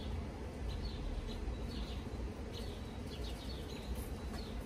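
Small birds chirping in short bursts, several times over, above a steady low hum of honeybees around an opened hive.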